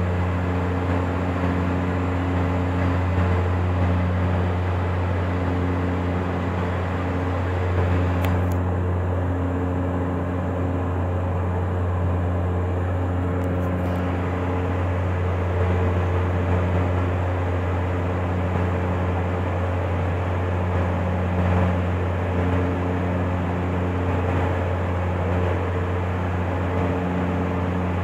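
Cabin sound of a Dash 8-Q400 in flight: the steady low drone of its twin turboprop engines and propellers over a hiss of airflow, with higher hum tones that swell and fade every couple of seconds.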